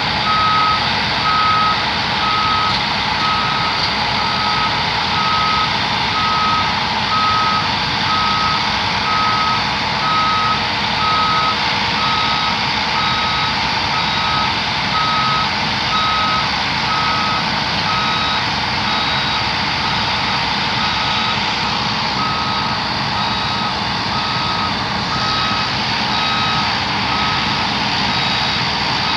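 Travel alarm of a DCM 30 crawler drill rig beeping steadily, a little under two beeps a second, over the steady running of the rig's engine as it tracks down off a lowboy trailer.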